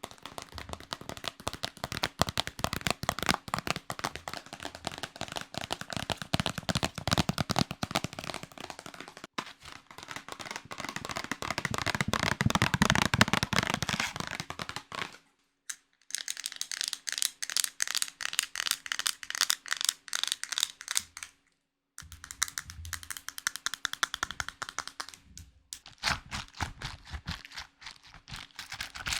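Close-miked ASMR trigger sounds: dense, rapid crackling and tapping clicks in three stretches, broken twice by a moment of silence.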